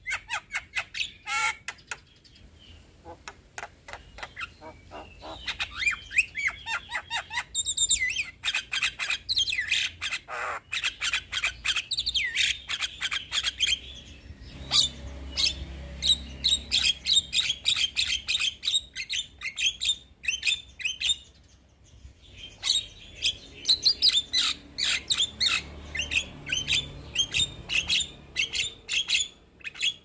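A young Javan myna (jalak kebo) in full song: a rapid, continuous run of chirps, whistles and harsh squawks, with a short break about two-thirds of the way through.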